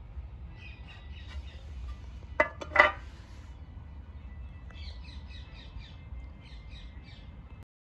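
Birds chirping in short repeated calls over a low steady outdoor rumble, with a couple of sharp knocks and a short harsh sound about two and a half seconds in.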